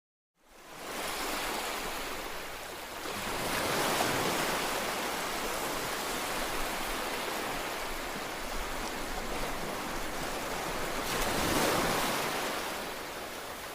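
A steady rushing noise that starts abruptly and swells twice, about four seconds in and again about eleven seconds in, much like surf.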